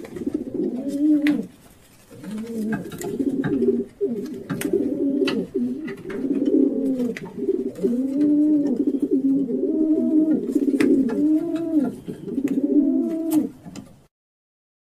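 Pigeons cooing: low coos that rise and fall, repeated and overlapping almost without a break, with scattered sharp clicks. The sound cuts off suddenly near the end.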